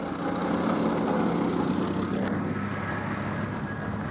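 A vehicle engine running steadily with a low, even hum.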